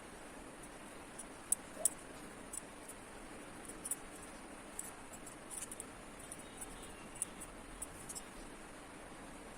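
Watercolor brush dabbing and scratching on paper: a run of faint, irregular little ticks over a steady hiss, stopping about a second before the end.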